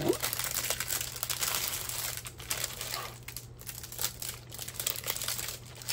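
Clear plastic packaging sleeve crinkling in irregular crackles as a rolled diamond painting canvas is slid out of it.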